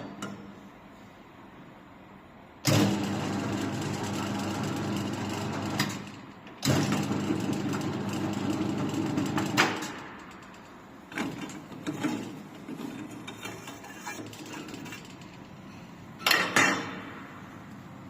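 CNC pipe bending machine running in two bursts of about three seconds each, a steady mechanical hum that starts and stops abruptly, followed by lighter clanks and two loud clanks near the end.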